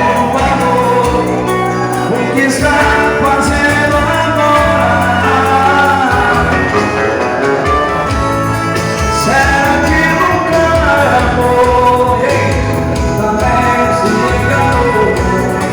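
Live band music with singing over a steady bass beat.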